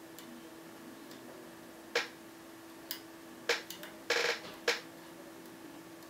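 Lock pick and tension wrench working the pins of a Thirard Trafic 6 radial pin cylinder: scattered sharp metallic clicks, with a short rattling scrape a little after four seconds in and one more click near the end.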